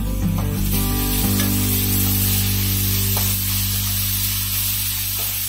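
Chopped onion sizzling in hot ghee with garlic, ginger and green chili, stirred now and then as it sautés.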